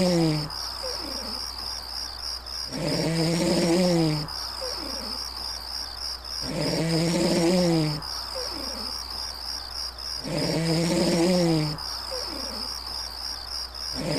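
Red deer stag roaring in the autumn rut: about four long calls, each falling in pitch, repeating at an even pace. A steady pulsing insect trill runs underneath.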